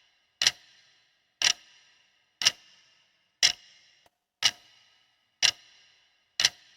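Clock ticking at an even one tick per second, seven sharp ticks in a row, used as a countdown timer for the answer time.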